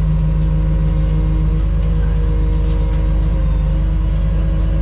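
An engine idling with a steady low drone.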